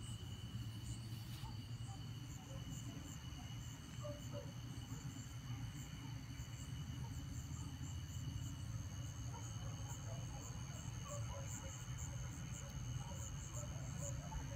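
Night insects, crickets among them, keeping up several steady high trills at different pitches, with rapid short chirps repeating over them. A steady low rumble runs underneath.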